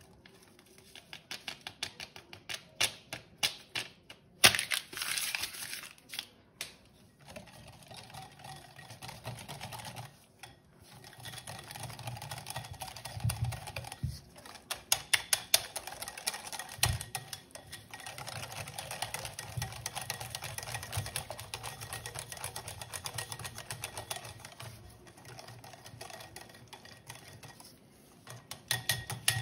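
A kitchen utensil clicking rapidly against a bowl while ingredients are mixed by hand, in several spells with short pauses between them.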